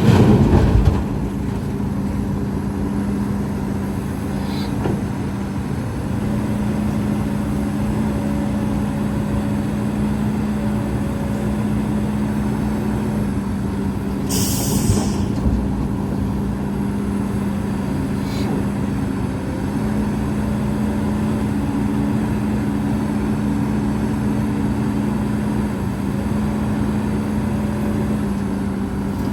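Heavy diesel earthmoving machinery running steadily, the engine pitch shifting up and down a few times as it works. A short high hiss about fifteen seconds in, and a brief louder burst at the very start.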